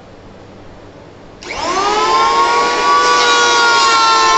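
Bosch GHO 6500 650 W electric hand planer switched on about a second and a half in: its motor spins up with a quickly rising whine, then runs steadily at full speed.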